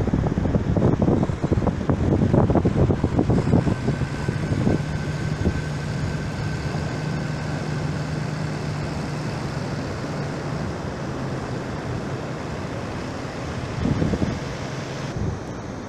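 Motorboat engine running at a steady drone with a faint whine above it, under wind buffeting the microphone that is heaviest in the first few seconds and again near the end.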